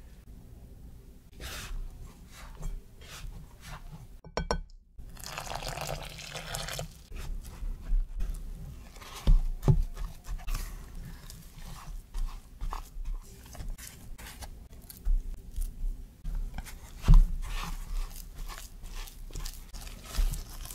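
Plastic dough scraper cutting and scraping crumbly scone dough in a glass bowl, soft crunching with a few dull knocks against the bowl, and near the end gloved hands squeezing the dough. About five seconds in, a short ringing clink is followed by a couple of seconds of denser liquid noise as milk goes into the crumbs.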